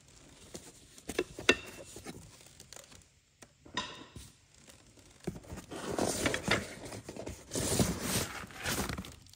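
Cardboard and paper packing rustling and crumpling as a box of knives is rummaged through. A few sharp knocks come in the first couple of seconds, and a longer, louder stretch of rustling fills the second half.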